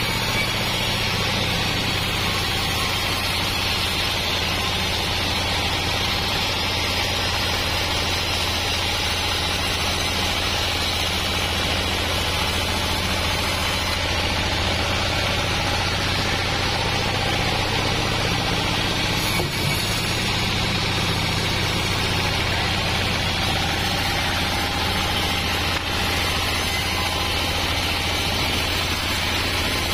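Homemade band sawmill driven by a diesel engine, running steadily as the band blade saws lengthwise through a squared log of wadang wood, with an even low engine hum under the noise of the cut.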